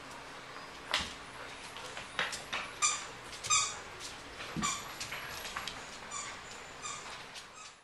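Golden retriever puppies at play giving a string of short, high-pitched, squeaky yips, starting about three seconds in, with a few light knocks and scuffles before them.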